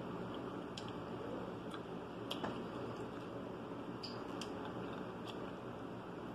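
Scattered soft clicks, about seven in all, of cooked mussel shells being handled and the meat picked out of them.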